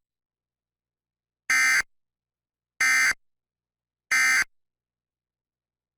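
Emergency Alert System end-of-message signal: three short, identical bursts of the buzzing digital SAME data tone, about a second and a quarter apart, marking the end of the warning.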